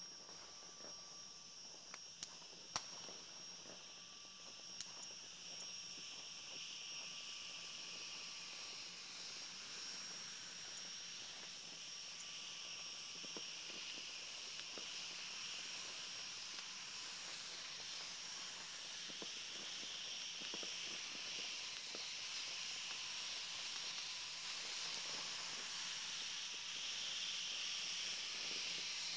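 Steady night chorus of insects, a shrill hiss high in pitch that slowly grows louder, with a few faint sharp clicks in the first five seconds.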